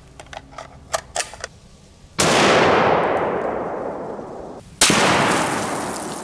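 A few light clicks of a bolt-action rifle being readied, then two loud .338 Lapua Magnum rifle reports from a Savage 111 Long Range Hunter, about two and a half seconds apart, each trailing off in a long echo.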